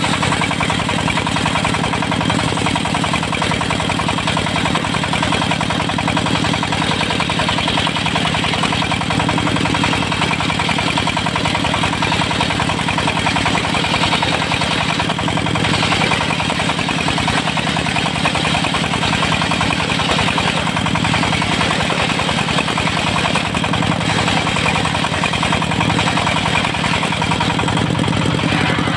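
Diesel engine running steadily, driving the circular saw blade of a portable sawmill ripping teak into thin boards, with a continuous sawing hiss over the engine's hum.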